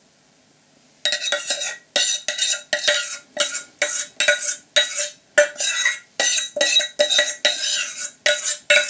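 A utensil scraping the inside of a small stainless steel pot, scraping out the last melted chocolate in quick strokes about twice a second, each with a faint metallic ring. It starts about a second in.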